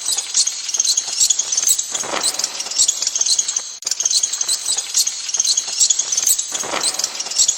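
Bats squeaking and chirping, a dense run of rapid high-pitched chirps, with a longer squeal gliding down in pitch about two seconds in and again near the end.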